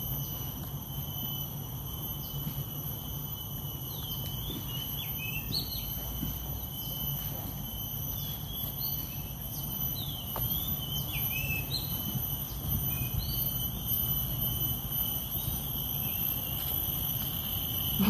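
Outdoor ambience of insects and birds: a steady high-pitched insect drone of several fixed tones, with short curved bird chirps repeating every second or two that thin out about two-thirds of the way through, over a low steady rumble.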